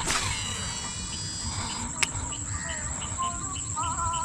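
Crickets and other insects chirring at dusk: a steady high drone with regular chirps about three a second. A sharp click with a brief ring right at the start and another click about two seconds in, and a few short warbling calls near the end.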